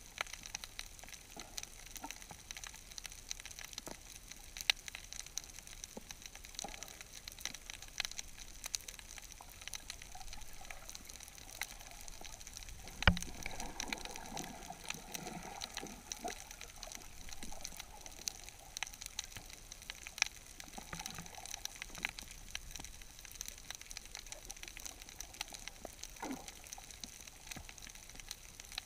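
Underwater reef ambience heard through a submerged action camera: a steady hiss dotted with scattered sharp clicks and crackles. One louder click comes about halfway through, followed by a few seconds of gurgling.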